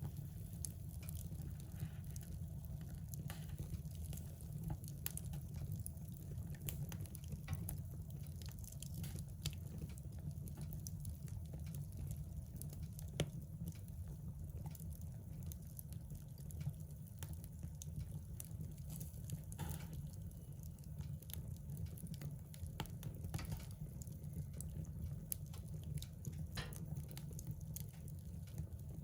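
Fire burning in a fireplace: scattered small crackles and pops over a steady low rumble, with one sharper pop about halfway through.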